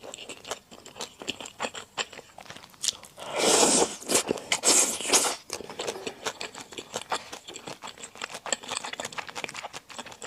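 Close-miked eating of rosé buldak flat glass noodles: steady wet chewing with quick mouth clicks, broken twice by a loud slurp of the noodles, about three and a half and five seconds in.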